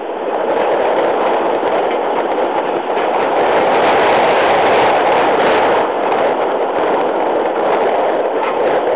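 Safari game-drive vehicle on the move: a loud, steady rumble of engine and road noise that swells about as it begins.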